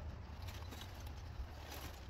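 Dry branches and brush rustling and crackling as they are pulled and handled, in a few short bursts, the strongest near the end, over a steady low hum.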